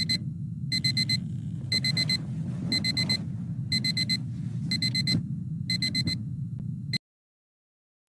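Electronic wake-up alarm beeping in quick groups of about four, roughly one group a second, over a steady low rumble. It cuts off suddenly about seven seconds in.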